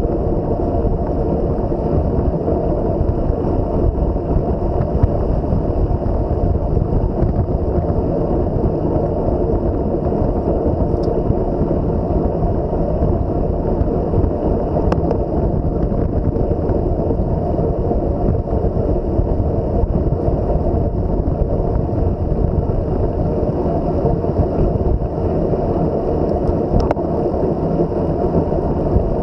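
Steady, loud rush of wind on the microphone of a camera carried on a moving bicycle, with a few faint clicks scattered through.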